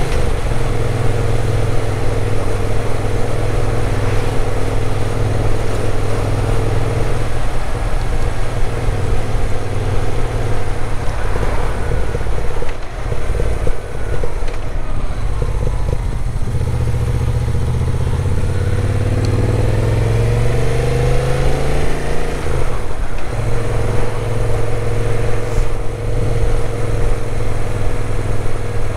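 Moto Guzzi V7's air-cooled transverse V-twin heard from the rider's seat while riding, its engine note rising and falling with throttle and gear changes. About two-thirds through, the pitch climbs steadily under acceleration, then drops at a shift.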